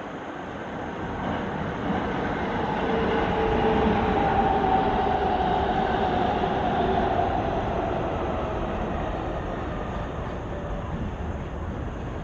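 Freight train hauled by an EF210 electric locomotive running past: a steady rail rumble that swells to a peak about four seconds in and then slowly fades, with a whine that drops slightly in pitch as it goes by.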